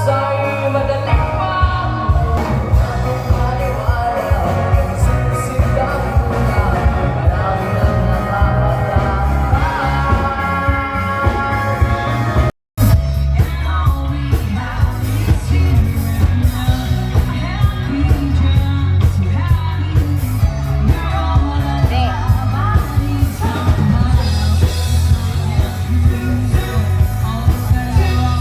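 Background music with singing and a steady beat and bass. It cuts out briefly about twelve seconds in and comes back as a rock-style track.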